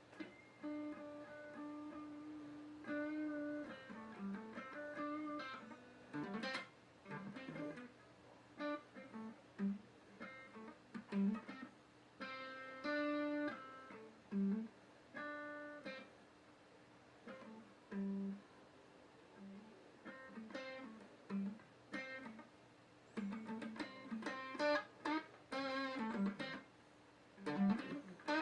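Guitar played slowly, with single plucked notes and short chords coming in unhurried phrases and pauses between them, and a few quick strums near the end.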